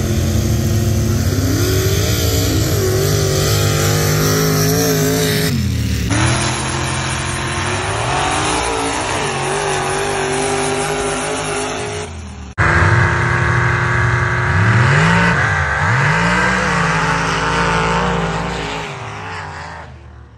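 Race trucks' engines revving hard at full throttle down a mud drag strip, the pitch climbing and dropping repeatedly through the run. The sound breaks off sharply twice and fades away near the end.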